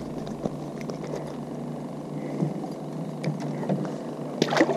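A boat motor humming steadily, with small clicks and knocks over it and a brief voice near the end.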